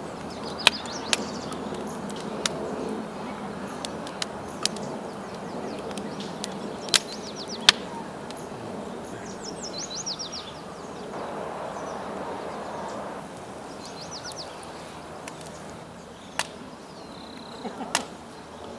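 Small birds chirping in short quick series, over a steady outdoor hiss, with sharp clicks and knocks every few seconds.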